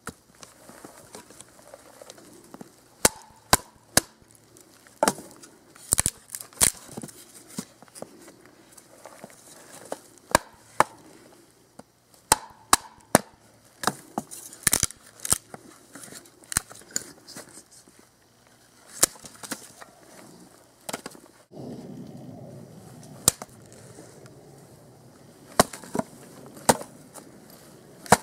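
Cold Steel Trail Hawk tomahawk chopping into a small upright length of dead wood to split it, about twenty sharp chops at an uneven pace. The piece splits off at the end.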